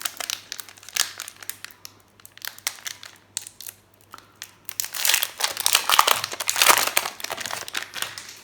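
Foil wrapper of a Commander Legends draft booster pack crinkling and crackling as it is torn open by hand, the crackle densest in the second half.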